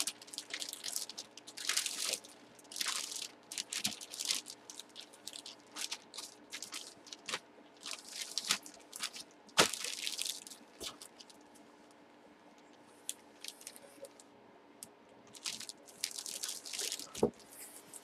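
Plastic packaging crinkling and rustling as a wrapped item is handled, in repeated short bursts, with a sharp click about ten seconds in and a quieter spell a little after.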